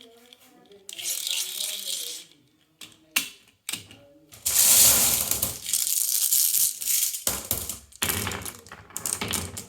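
Marbles rolling and clattering down a wooden HABA marble run, with a couple of sharp clicks as they strike track pieces. A long, loud rattling rush of many marbles comes about halfway through, and another comes near the end.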